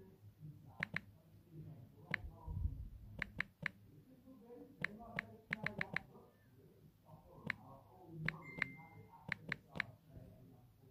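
Typing on a smartphone's touchscreen keyboard: about eighteen sharp, irregular taps, some in quick runs. A faint murmuring voice sits underneath, and a brief high beep sounds about two-thirds of the way through.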